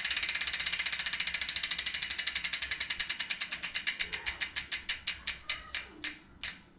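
Bicycle freewheel hub ticking as the wheel coasts and spins down, the pawl clicks slowing steadily from about ten a second to a few a second before stopping near the end.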